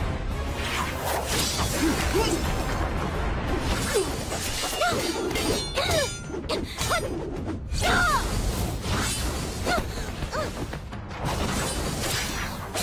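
Cartoon fight sound effects: repeated magical blasts, whooshes and shattering crashes over dramatic background music.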